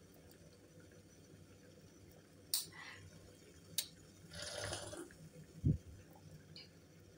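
Small sounds of someone drinking thick blended juice from a glass: two sharp clicks, then a short noisy sip about four and a half seconds in, followed by a soft low thump.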